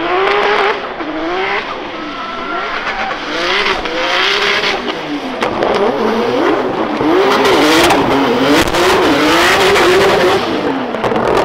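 Drift car's engine revving up and down again and again as the throttle is worked through a slide, over the hiss of tyres spinning and skidding. It grows louder in the second half.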